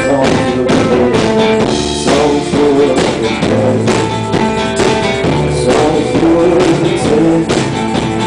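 Live music: an acoustic guitar strummed steadily, with a male voice singing.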